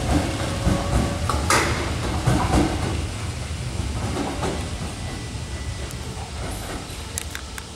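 Nose Electric Railway 5100-series electric train pulling away from the station. It makes a low rumble and a few wheel clacks over the rail joints, with a faint motor whine rising at first, and the sound fades steadily as the train moves off.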